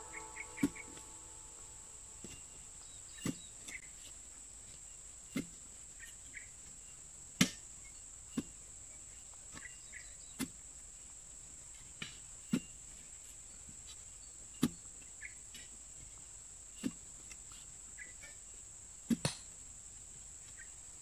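A long steel digging bar being driven down into soil to make a fence-post hole, giving sharp single thuds about every one to two seconds, two in quick succession near the end. A steady high-pitched insect drone runs behind them.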